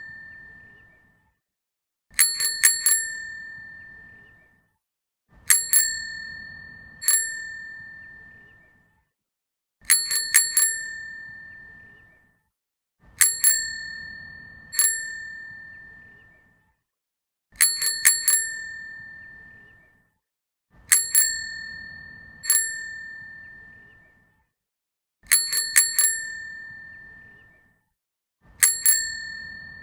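Bicycle bell rung over and over. Each round is a quick burst of two to four dings followed by a single ding, and the pattern repeats about every four seconds. Every ring is a clear, high tone that dies away over a couple of seconds.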